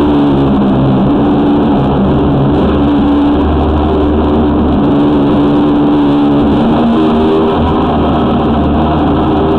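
High-pressure drain jetter running steadily, a continuous engine drone while it pumps water through the jetting hose into the sewer line to blast out tree roots.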